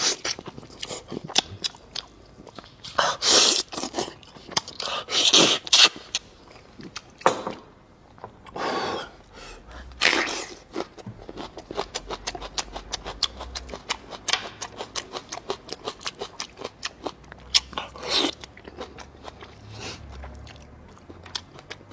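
Close-miked chewing of meat gnawed from a braised beef bone: a steady run of short wet mouth clicks, with several louder noisy bursts spread through.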